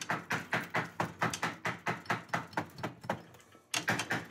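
Hammer striking a press-fitted idler wheel on a snowmobile's rear skid to knock it off its shaft: quick, even blows, about three or four a second, a short pause about three seconds in, then more blows.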